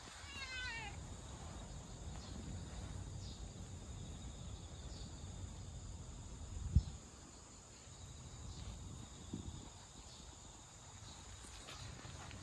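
Outdoor ambience: a steady high insect trill over a low rumble. A short run of descending bird chirps comes just under a second in, and a single dull thump, the loudest sound, about seven seconds in.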